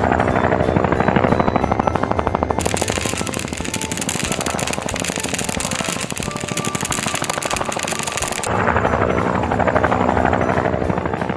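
Cartoon helicopter rotor sound effect: a fast, steady chopping over a music bed. From about two and a half seconds in to past eight seconds, a bright hissing rush joins it, matching the pouring of the balls.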